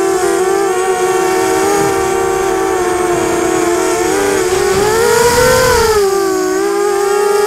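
ZMR250 quadcopter's four Emax MT1806 brushless motors with Gemfan 5030 propellers whining in flight, several close pitches wavering and beating against each other. About five seconds in, the pitch rises briefly as the motors speed up, with a swell of low wind rumble.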